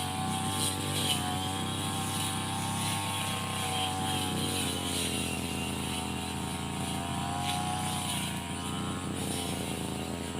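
A brush cutter's small petrol engine running steadily at high speed, its pitch wavering a little up and down as the load changes.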